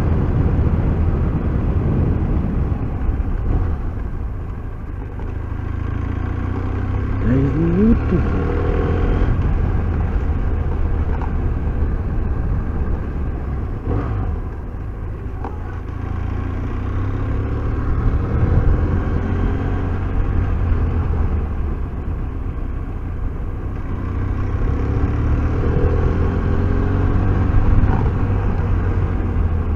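BMW F800R's parallel-twin engine running under way, its revs rising and falling through the bends, with a pitch climb about a quarter of the way in and again near the end.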